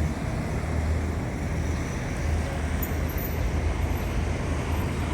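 Steady road traffic noise: a continuous low rumble of motor vehicles.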